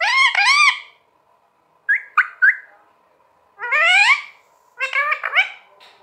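Rose-ringed parakeet calling in four bursts: two arching calls, three short clipped calls, one long rising call, then a quick run of calls.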